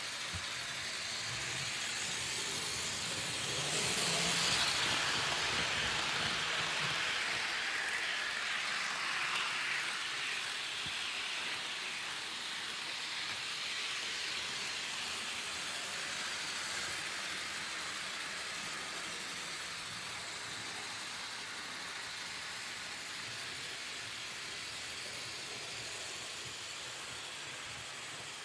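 HO-scale Lima NSWGR C38 model steam locomotive and its coaches running on the layout track, a steady hissing whir of motor and wheels on rail. It swells to its loudest about four to five seconds in, then slowly fades.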